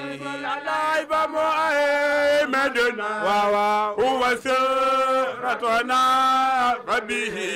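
Men chanting an Arabic devotional poem in praise of the Prophet Muhammad into a microphone, in long held, ornamented notes that glide and waver in pitch.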